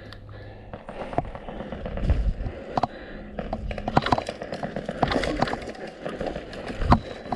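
Airsoft gunfire and movement: irregular sharp pops and clicks over rustling gear noise, growing busier after about a second, with a couple of heavier thumps.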